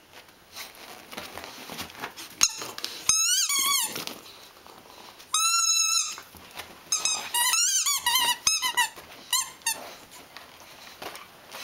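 Rubber squeaky ball squeezed in a puppy's jaws as she chews it: a string of squeaks, some held for most of a second and wavering in pitch, others short and quick, with a few sharp knocks among them.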